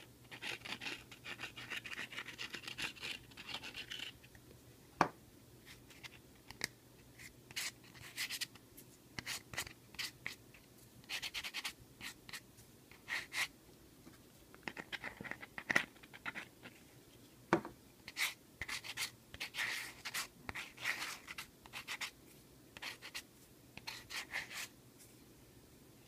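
Intermittent scratching and rubbing, with a couple of sharp clicks, as the tip of a Crazy Glue bottle is worked over a 3D-printed sandstone part. A faint steady hum from running fans lies underneath.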